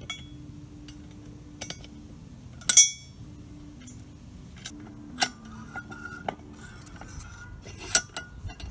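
Steel pieces clinking and knocking as a rivet die is set up in a bench vise. Irregular clicks throughout, the loudest a single ringing clink about three seconds in, with sharper knocks near five and eight seconds.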